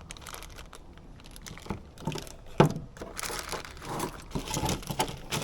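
Plastic parts bags rustling and crinkling as small heater parts are handled, with scattered light clicks and one sharp click about two and a half seconds in.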